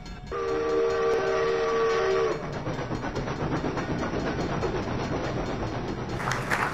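Steam locomotive whistle blowing one chord of several tones for about two seconds, then a steady hiss and rumble of a steam train. Near the end this gives way to a rapid patter of short sharp sounds.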